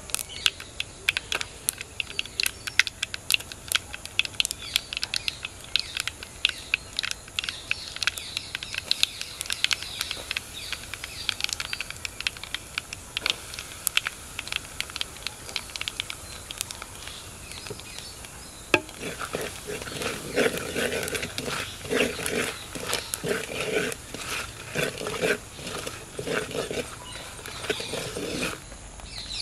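Dried red chillies frying in hot oil in a clay pot, crackling and popping sharply. From about two-thirds of the way through, a spoon scrapes and stirs the chilli-powder paste against the pot, a coarser, rougher sound than the crackling.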